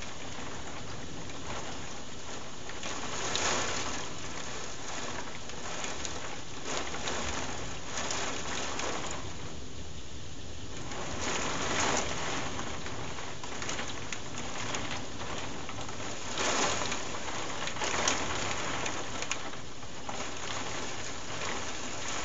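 Heavy thunderstorm rain pouring down steadily, swelling louder several times.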